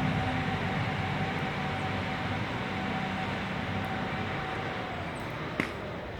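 Burst spray paint can venting its gas: a steady hissing rush with a whistle-like tone, slowly dying down. The whistle stops about five seconds in, and there is one sharp click near the end.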